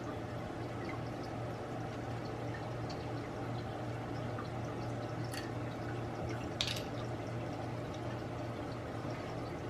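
Steady low hum over an even background hiss, with two light clicks about five and six and a half seconds in.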